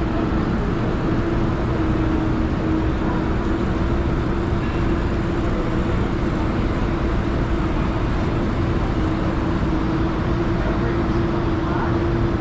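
Steady hum of an indoor market hall: a constant low drone over an even rumbling background, typical of refrigerated display cases and ventilation running.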